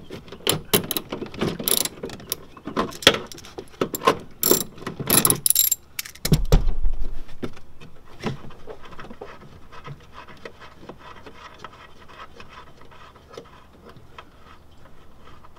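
Ratchet wrench clicking as a 10 mm taillight bolt is undone, along with hand-tool rattling and the carpet lining rubbing. A dull low thump about six seconds in, then fainter, scattered clicks.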